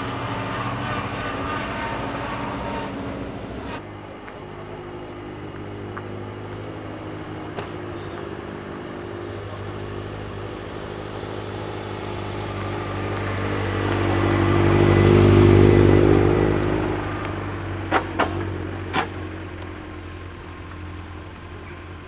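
Modified competition car engine running and revving, its note swelling loudly as the car pulls away about two-thirds of the way through, followed by three sharp exhaust pops about a second apart.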